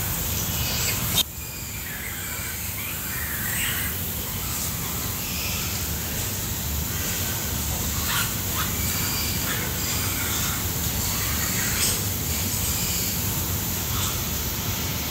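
Scattered short, high-pitched animal chirps and squeaks over a steady low hum, with a sharp click about a second in.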